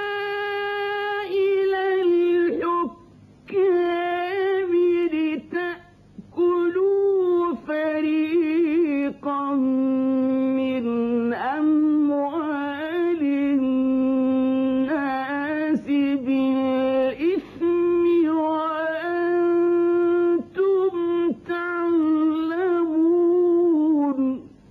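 A man reciting the Quran melodically with tajweed, holding long notes in a high register with ornamented turns of pitch, in phrases separated by short pauses for breath. The recitation stops just before the end.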